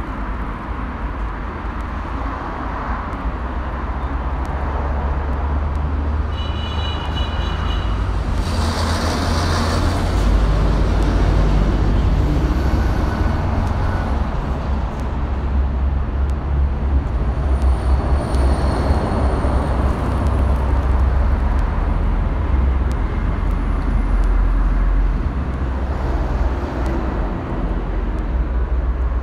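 Outdoor road traffic: a steady low rumble of passing heavy vehicles, with a short high tone about six seconds in and a brief hissing swell around nine seconds.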